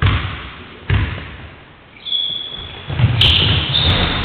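A basketball bounced on a wooden sports-hall floor, twice about a second apart, each thud ringing briefly in the hall: pre-shot dribbles at the free-throw line. High squeaks follow, and the noise grows louder in the last second.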